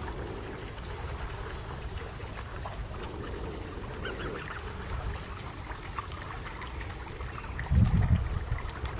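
Gosling peeping faintly now and then over a steady low rumble, with a louder low rumble lasting about half a second near the end.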